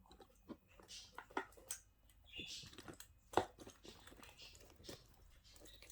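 Faint scattered clicks, taps and rustles of small fidget toys being handled and rummaged through, with one sharper click about three and a half seconds in.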